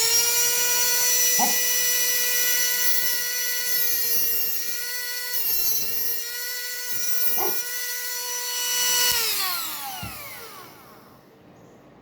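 Sharpie tungsten grinder's motor running at a steady high whine while a tungsten electrode is ground to a point, with a couple of brief knocks. About nine seconds in it is switched off and winds down, its pitch falling away.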